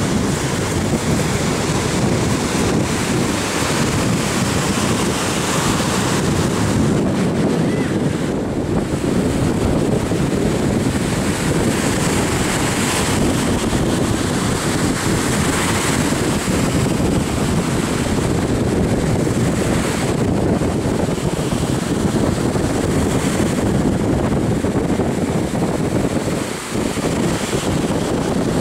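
Wind buffeting the microphone over the steady wash of breaking surf, with a brief lull near the end.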